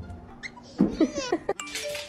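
A cat meowing: a few short, wavering calls about a second in, with a couple of sharp clicks.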